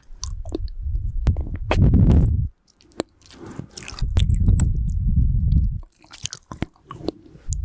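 Close-miked mouth sounds of eating a lollipop: sharp clicks and crunches of hard candy against the teeth. Two long gusts of nose breath blow on the microphone as a low rumble, about a second and a half in and again around four seconds in, the loudest sounds here.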